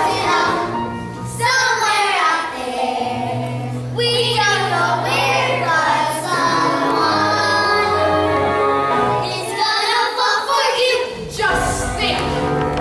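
Young voices singing a musical-theatre song over instrumental backing music, the melody moving through long held, wavering notes above a sustained low accompaniment.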